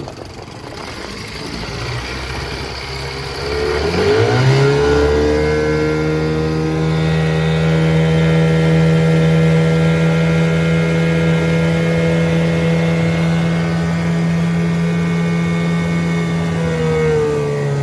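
1979 Evinrude 9.9 two-cylinder two-stroke outboard running in forward gear. It is throttled up about four seconds in to a steady high-speed run, then throttled back down near the end.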